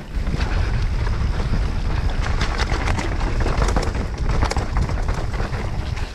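Mountain bike rattling and clattering over a rough downhill trail at speed, with many short knocks, under a heavy wind rumble on the microphone. It gets louder just after the start.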